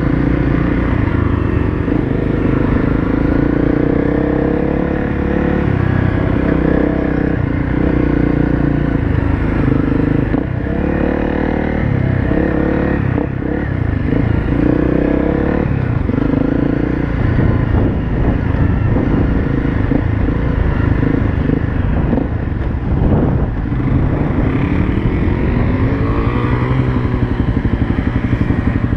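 Honda CRF250L's single-cylinder four-stroke engine running under way on a dirt track, its pitch rising and falling again and again as the throttle is worked.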